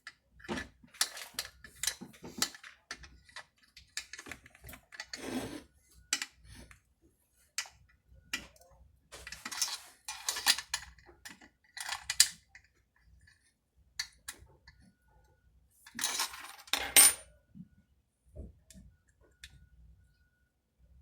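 Metal hand tools and chainsaw parts clinking and clicking as bolts are fitted and tightened during reassembly, with a few brief scraping runs, the loudest near the end.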